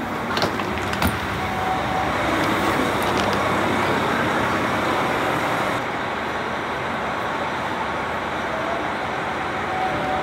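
Steady running noise of a JR Hokkaido KiHa 261-series diesel express train (the Hokuto) stopped at a station platform, with a few knocks in the first seconds as passengers step off with luggage. The noise turns duller about six seconds in.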